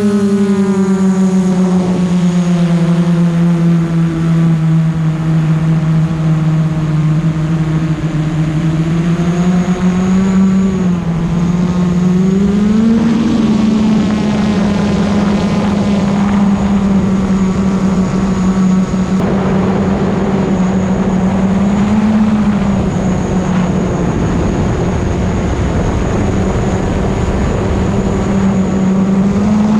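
Custom-built FPV drone's motors and propellers whining in flight, the pitch sinking over the first several seconds, climbing back about twelve seconds in, then holding fairly steady with small swells as the throttle changes.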